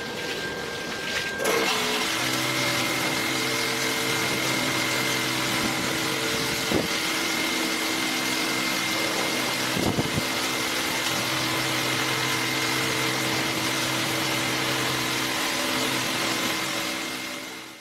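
LeisuWash touchless automatic car wash running: a steady machine hum from its pump and motors under the hiss of high-pressure water spray. It gets louder about a second and a half in, and fades out at the end.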